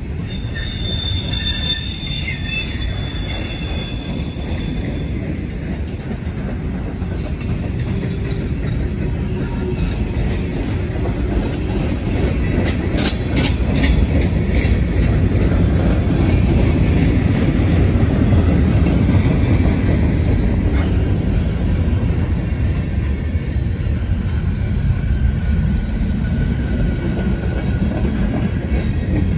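Freight cars rolling past: a steady low rumble of steel wheels on rail, with a high-pitched wheel squeal over the first few seconds and a brief cluster of sharp squeaks about halfway through.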